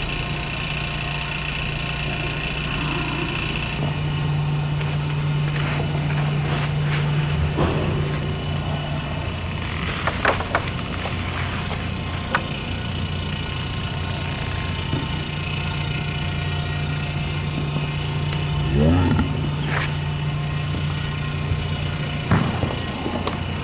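Steady low hum with a few short knocks and rustles scattered through it.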